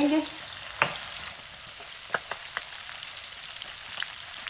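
Potato pieces shallow-frying in hot oil in a wok, a steady sizzle, half-fried and being turned onto their other side. A few sharp knocks of a wooden spatula against the pan as they are turned.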